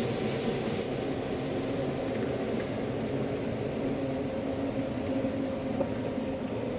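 John Deere 9500 combine running steadily while harvesting corn: an even machine drone with a few steady low tones.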